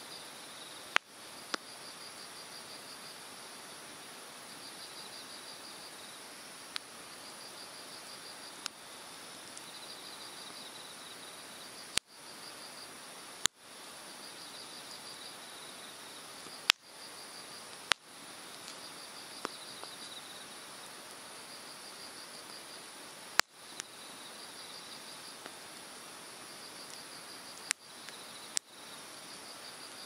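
Hardwood bonfire crackling, with about a dozen sharp pops of burning wood at irregular intervals, over the steady rush of a mountain stream. An insect chirps throughout in short pulsed trills repeating every second or two.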